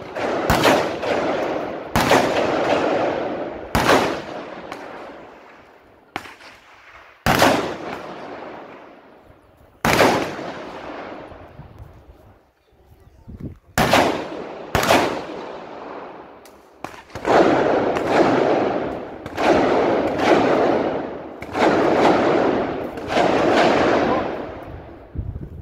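A string of about fifteen gunshots at irregular intervals, some in quick pairs, each with a long echoing tail.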